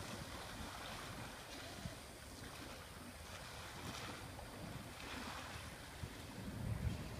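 Small waves sloshing against a concrete seawall and under a moored catamaran's hulls, with wind rumbling on the microphone.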